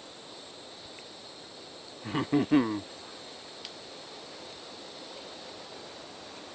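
Steady outdoor background hiss with a faint, even high-pitched tone running through it. A brief burst of a man's voice comes about two seconds in.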